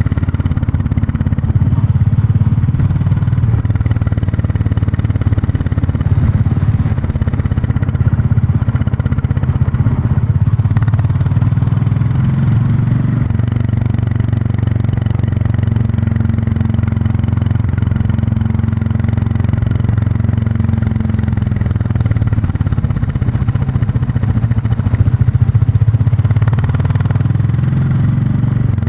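Royal Enfield Classic 350's single-cylinder engine and exhaust running steadily as the motorcycle is ridden, its firing pulses plain throughout, with a slight rise in engine note and loudness a few seconds before the end.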